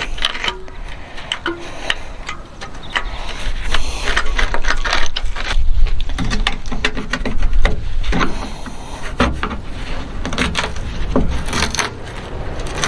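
A hand tool's blade prying and scraping at the rusted steel sill of a Ford Transit MK7 van. Rotten metal breaks away in irregular clicks, scrapes and crunches.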